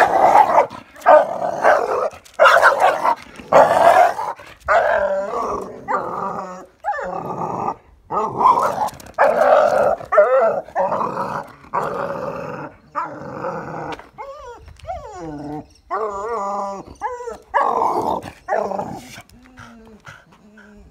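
American Staffordshire terrier on a leash barking and growling at another dog in a long, loud run of barks, the sign of her leash-reactive aggression toward other dogs. The barks are loudest in the first few seconds and grow weaker and sparser toward the end.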